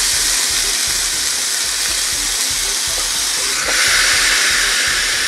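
Beef steak sizzling on the hot plates of a Chefman electric panini grill press, a steady hiss. About three and a half seconds in the lid is brought down onto the meat with a soft knock, and the sizzling turns a little louder.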